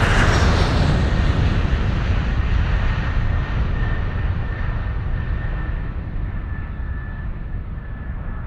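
Airplane passing overhead, loudest at the start and fading steadily as it moves away, with a faint high whine holding on in the second half.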